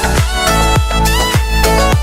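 Background music: a beat-driven track with a kick drum a little under twice a second under a sustained melody.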